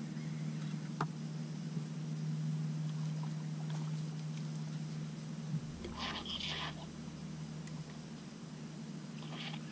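Bow-mounted electric trolling motor humming steadily, with a deeper hum joining about halfway through. A short rustling burst comes a little after that.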